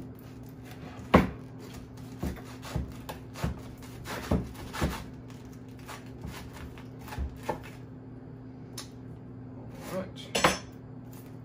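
A sharp chef's knife sawing through the hard crust of a sourdough loaf on a wooden cutting board: irregular crunching and cracking strokes, the loudest about a second in, with a last cluster near the end.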